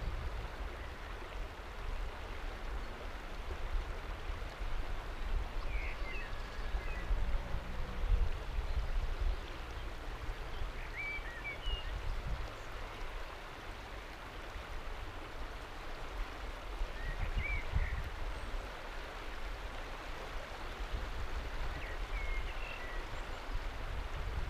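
A shallow river flowing steadily past and lapping over a flat rock ledge, with a low rumble underneath. About four faint, short high chirps come and go through it.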